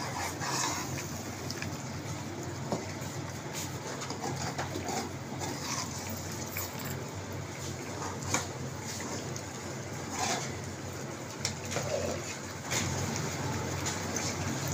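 Chicken karahi curry cooking in a steel karahi over a low gas flame, with a metal spoon now and then knocking and scraping against the pan while it is stirred, over a steady low hum.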